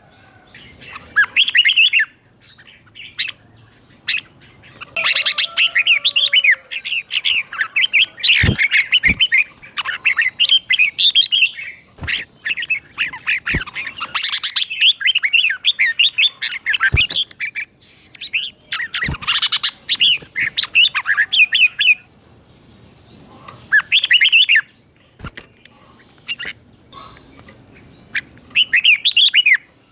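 Red-whiskered bulbul singing bouts of quick, liquid whistled phrases, repeated in doubled pairs, with short pauses between bouts. A few sharp clicks fall among the phrases.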